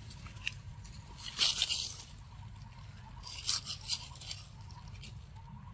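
A young macaque biting and gnawing at a ripe mango: two short spells of crisp scraping and crunching, about a second and a half in and again about three and a half seconds in.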